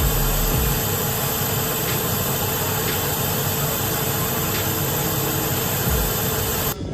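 An 18-wheeler's engine running steadily, heard from under the truck with a strong, even hiss over it. It cuts off suddenly near the end.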